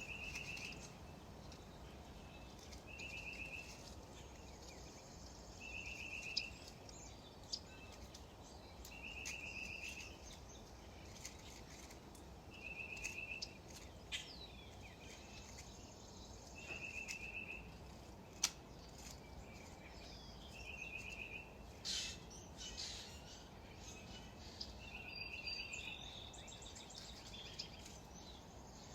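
Faint, short trilled chirps, each under a second long, repeating about every three seconds over a low steady hiss, with a few scattered sharp clicks.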